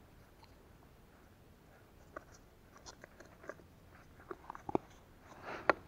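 Small clicks and crackles of hands handling a small plastic container of foam bait balls while baiting a hook. The clicks are faint at first, grow more frequent after about two seconds, and the sharpest come near the end.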